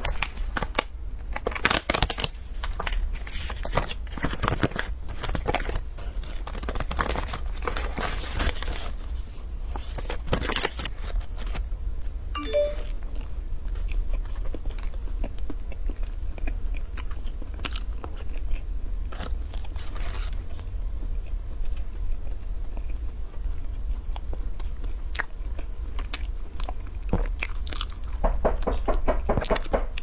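Plastic boxes and paper wrapping of mung bean cakes crinkling as they are handled and opened, then close-miked biting and chewing of a soft pastry. Near the end the paper wrapping crinkles again.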